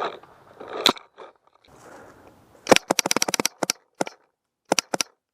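Paintball markers firing: a single pop about a second in, then a rapid string of about ten shots a little under three seconds in, followed by several scattered single shots.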